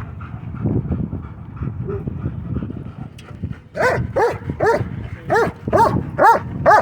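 Dog barking in a quick run of high-pitched, yelping barks, about two a second, starting about four seconds in after low rumbling noise: an excited dog.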